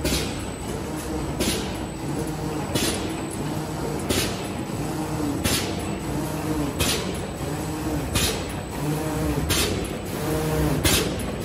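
Automatic plastic mailer bag making machine running with a steady mechanical hum and whir, cycling evenly. About nine short hisses of compressed air, one roughly every 1.4 seconds, as its pneumatic cylinders stroke the heat-sealing bar on each bag.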